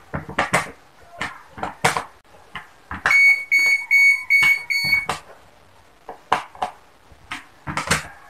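Screwdriver driving screws back into the plastic housing of an electric drill: scattered clicks and knocks of metal tool on plastic. About three seconds in, a loud run of about six quick electronic beeps lasting some two seconds.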